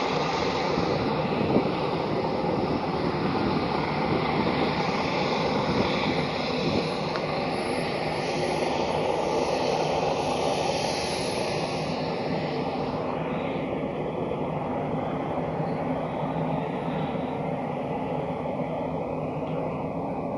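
An engine drones steadily, with a brighter hiss between about eight and twelve seconds in. The drone is not from the D18's own engines, whose propellers stand still.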